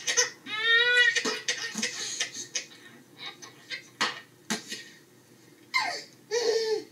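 Home-video audio played from a TV speaker: a short high-pitched cry about half a second in, a couple of sharp knocks around four seconds, and brief voices near the end.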